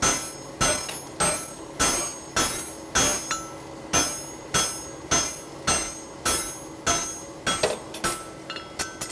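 Hand hammer striking a hot steel horseshoe on an anvil in even blows about every 0.6 s, each with a short metallic ring. The shoe is being ironed out flat and smooth with overlapping blows. Near the end the blows turn lighter and quicker.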